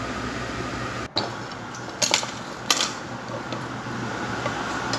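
Steady hum of a kitchen fan, with a few sharp knocks of a spatula against a metal cooking pot about two seconds in and again just before three seconds.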